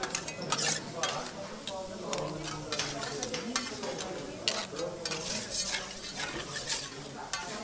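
Scallops and vegetables sizzling on a steel teppanyaki griddle while a metal spatula scrapes and taps against the plate, giving a steady hiss broken by irregular sharp clicks.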